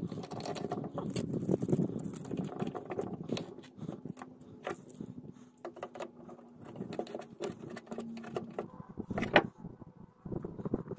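Handling noise from tightening bar clamps on a casting mould: small clicks, scrapes and knocks of metal and plastic parts, the loudest a sharp knock about nine seconds in. A steady low hum runs underneath and stops about eight and a half seconds in.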